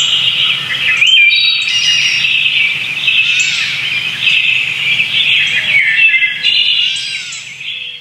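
Many birds chirping and singing at once, a dense chorus of overlapping high chirps and short whistled notes, fading down near the end.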